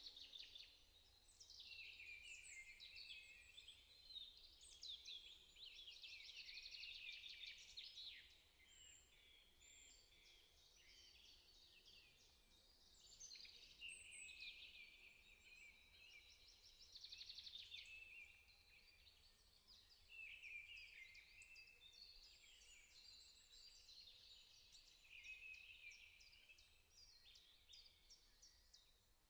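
Faint birdsong: small birds chirping and trilling, several calls overlapping, with brief lulls.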